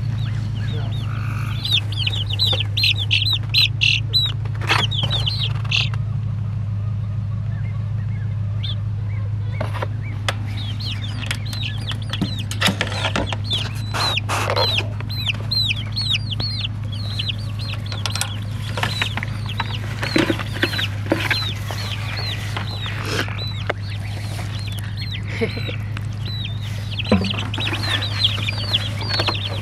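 Young chickens peeping over and over in quick runs of short, falling chirps, with scattered sharp clicks and knocks and a steady low hum underneath.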